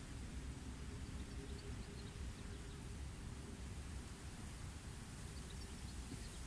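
Wind rumbling on the microphone over a steady hiss, with a few faint high chirps about two seconds in and again near the end.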